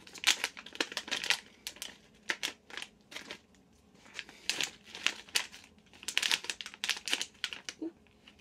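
Plastic wrapper of a Japanese ice cream crinkling in the hands in short bursts as it is opened, with a brief pause partway through.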